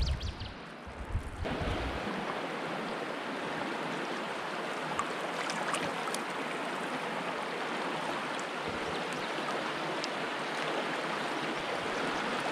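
Small river rapids rushing, a steady hiss of fast-flowing water; a low rumble in the first second or two gives way to it.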